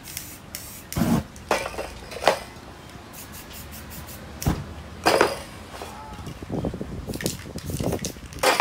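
Aerosol spray-paint cans hissing in several short bursts, about six, as paint is sprayed onto poster board.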